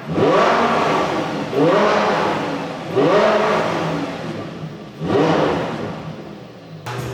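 Supercharged Lamborghini Huracán 5.2-litre V10 free-revved in four quick throttle blips, each rising sharply in pitch and then falling back toward idle.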